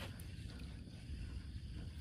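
Faint outdoor ambience: a steady low rumble with a thin high hiss, and no distinct event.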